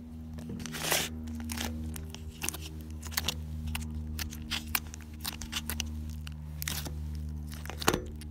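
Thick, crunchy slime being squished and poked by fingers in a plastic tub, giving off irregular crackles and sharp pops as air bubbles in it burst.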